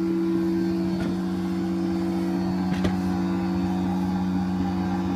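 Proxxon spindle motor on a homemade CNC mill running at steady speed, a constant humming whine, with a couple of faint clicks about a second and three seconds in.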